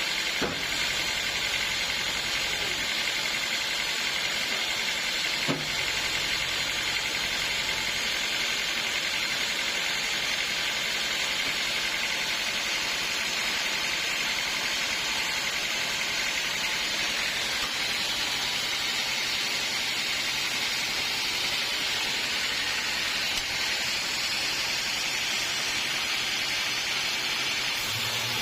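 Sawmill saw running steadily with a constant hissing noise, consistent with a blade cutting through a log. There are two brief knocks, about half a second in and near six seconds in.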